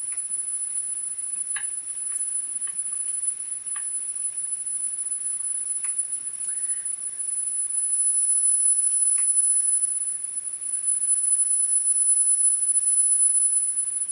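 Steady 10 kHz test tone played back from a test tape on a Pioneer CT-W205R cassette deck, its level rising and falling as the playback head's azimuth is adjusted, louder from about eight seconds in. A few faint ticks of the screwdriver at the head.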